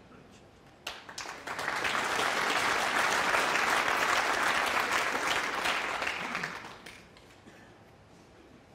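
Arena audience applauding: the clapping starts about a second in, swells quickly, holds and dies away about seven seconds in.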